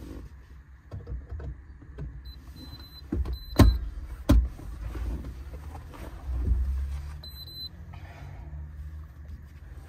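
Handheld OBD2 scan tool giving short, high electronic beeps, three of them spread across several seconds, amid handling knocks as it is plugged in and worked. Two sharp, loud knocks come about three and a half and four seconds in, over a low rumble.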